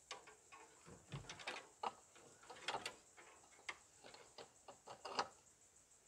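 Light, irregular clicks and taps as a plastic engine cooling fan is seated on its hub by hand and its mounting nuts are started, with a sharper knock about five seconds in.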